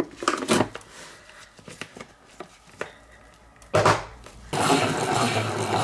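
Plastic salad spinner: the lid is knocked and clicked into place with several light clicks and one sharp knock about four seconds in, then the basket starts spinning with a steady whir.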